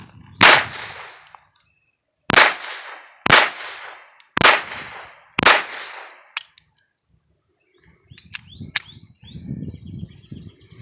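Five shots from a Beretta 950B Minx semi-automatic pistol in .22 Short. The first shot comes alone; the other four follow about a second apart. Each is a sharp crack with a short ring-out. A few light clicks come about two seconds after the last shot.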